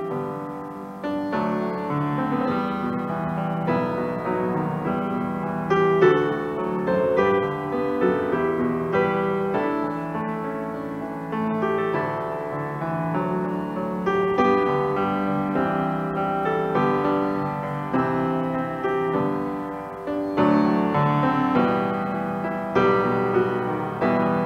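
Grand piano played solo: an instrumental piece of held chords with a melody moving over them.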